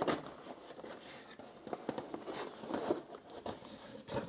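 A cardboard box being opened by hand: the flap pulled open and the lid lifted off, with light rustling and scraping of cardboard and a few soft taps.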